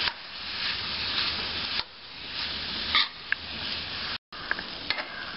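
Steel spoon stirring cubed ash gourd with spices in a hot oiled pan: a steady sizzle with a few light clicks of the spoon against the pan. The sound cuts out for a moment just past four seconds.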